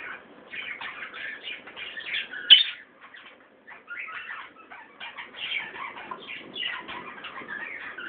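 Caged budgerigars chattering and warbling in a rapid, continuous twitter. A single sharp knock stands out about two and a half seconds in, followed by a short lull before the chatter resumes.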